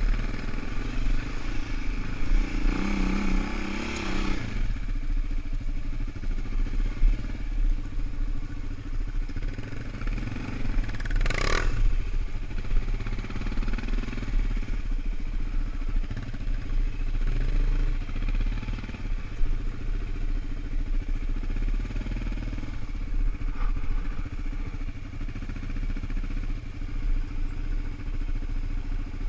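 Suzuki LT-Z400 sport quad's single-cylinder four-stroke engine running under varying throttle while riding over rough, leaf-covered ground, with a second sport quad's engine ahead. A brief sharp noise about eleven seconds in.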